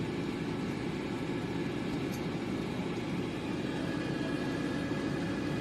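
Air fryer running, its convection fan giving a steady whir with a faint high tone above it.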